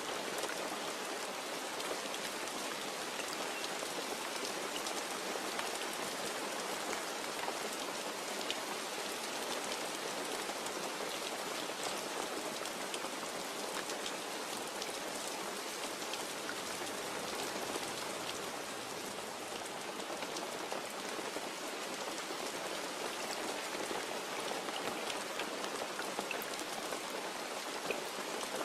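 Steady rain falling, with individual drops tapping close by; no thunder.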